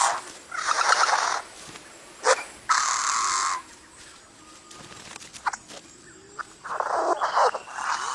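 A courting bird giving a series of harsh, rasping calls, each about a second long, with a pause of a few seconds in the middle.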